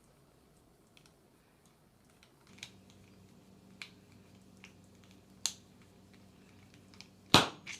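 Small metal clicks and scrapes of a screwdriver working the spring-loaded firing pin of a Mosin-Nagant rifle bolt, ending in a louder sharp clack near the end as the parts let go.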